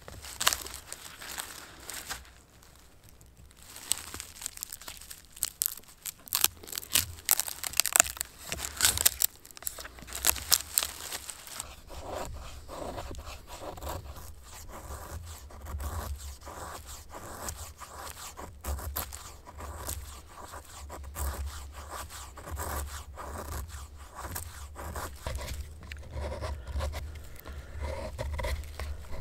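Fixed-blade knife working dry, weathered wood: sharp cracks and tearing scrapes as the blade pries and splits the log, then from about halfway a quicker run of shaving strokes peeling off thin curled shavings.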